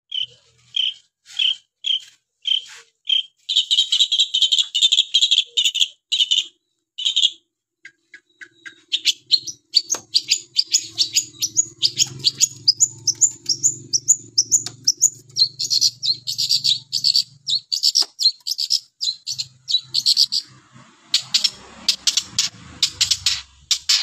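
Long-tailed shrike (pentet) singing. It starts with a string of short, evenly spaced notes, moves into a fast, dense chattering warble, and then gives a long rapid series of quick rising notes before breaking into scattered calls near the end.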